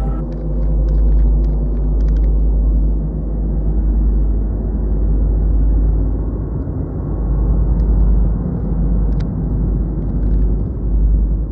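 Loud, steady deep rumble from an exhibition soundscape, with a few faint clicks over it.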